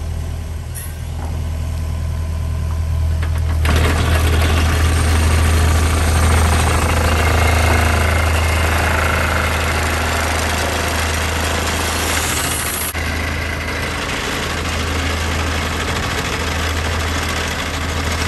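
Compact excavator's diesel engine running steadily, with the pile-driver attachment on its arm driving a wood piling. The driver comes on loud about four seconds in, runs for about nine seconds, then cuts off suddenly, leaving the engine running.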